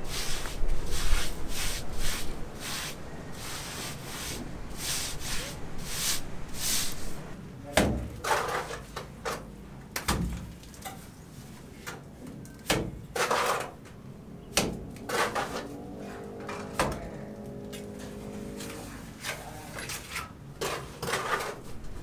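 Rhythmic scraping strokes of a long-handled scraper spreading a wet white coating across a concrete roof slab, followed by scattered knocks and scrapes.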